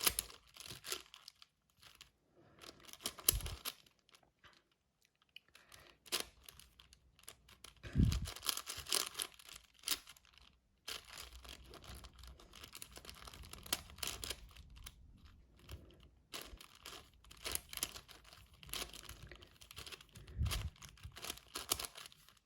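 6x6 Rubik's cube being turned by hand: plastic layers clicking and rattling in irregular bursts with short pauses, plus three dull thumps from the cube being handled.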